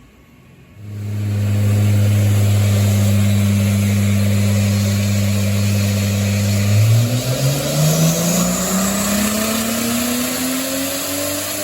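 Turbocharged Toyota 2JZ-GE inline-six in a Lexus IS300 under load on a hub dyno. It comes in about a second in and holds a steady engine speed for several seconds, then revs up smoothly and continuously in a dyno pull. A faint high whistle from the turbo rises along with it near the end.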